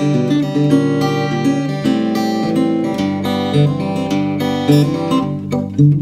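All-rosewood Batiksoul Bird and Roses acoustic guitar played fingerstyle: a plucked melody over ringing bass notes, with a deeper bass note coming in about three seconds in.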